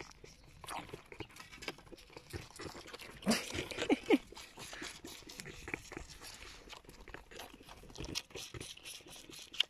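Goat kids suckling at a milk bottle's rubber teat, with a run of wet smacking and sucking clicks. A short bleat about three to four seconds in is the loudest sound.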